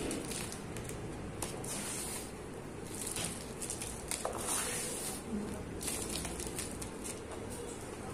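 A dry sand-and-cement lump crushed in the hand, crunching and crackling as it breaks apart, with crumbs and grit pattering onto a heap of loose sand. The crackling comes in several clusters of quick crunches.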